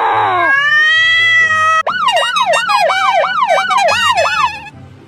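A siren-like sound effect: a long rising wail, then a rapid up-and-down warble about three times a second for nearly three seconds, before it cuts out near the end.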